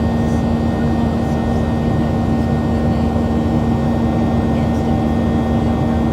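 Steady cabin noise of a Boeing 737-700 airliner in flight: a continuous rush of air over the fuselage with the hum of its CFM56-7B turbofan engines, carrying a few steady tones.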